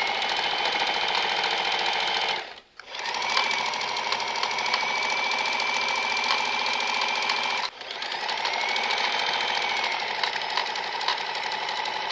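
Electric domestic sewing machine stitching down a folded fabric strap, its motor whining steadily over the needle's fast chatter. It stops for about half a second some two and a half seconds in, stops again very briefly near eight seconds, and runs on each time.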